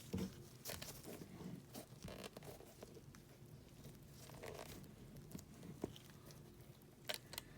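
Faint handling noise from a camera being adjusted and repositioned: scattered small clicks and knocks with soft rustling, a sharper pair of clicks near the end.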